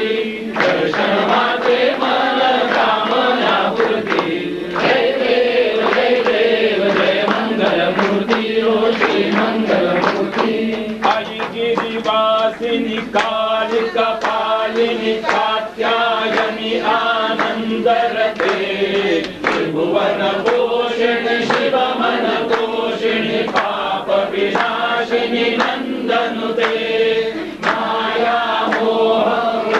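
A group of voices chanting a Hindu devotional hymn together, as at an aarti, with sharp percussive strikes keeping the beat.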